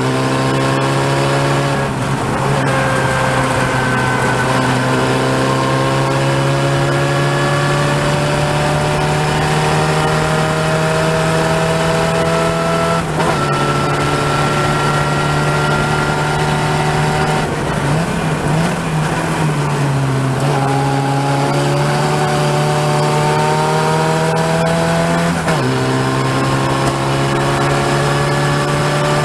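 Open-wheel race car's engine heard from onboard at racing speed, its pitch climbing steadily between several quick upshifts, with a rougher, lower-revving stretch about two-thirds of the way through.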